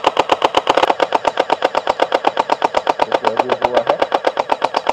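Electric toy water-bead blaster shaped like Thanos's hand firing on continuous mode: a fast, even machine-gun rattle of about ten shots a second.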